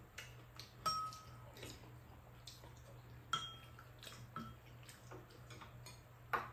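Metal spoon and chopsticks tapping and scraping against ceramic bowls: several light clinks, three of them ringing briefly, over a faint steady low hum.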